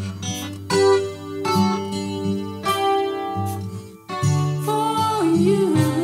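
Acoustic guitar playing a slow intro, chords struck about once a second and left to ring. Near the end a woman's voice comes in singing.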